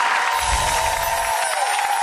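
Studio audience applauding and cheering over the show's closing music, with a deep bass note lasting about a second near the start.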